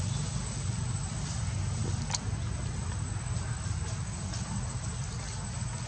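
Steady low outdoor rumble with a thin, steady high whine above it, and a single sharp click about two seconds in.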